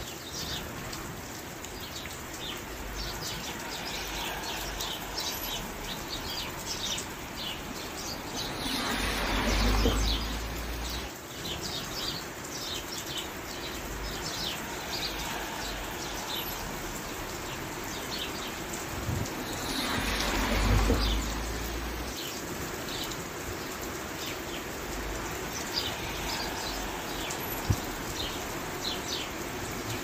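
Steady rain falling, with many short bird chirps over it. The rain swells louder twice, about nine and twenty seconds in, and a single sharp tap comes near the end.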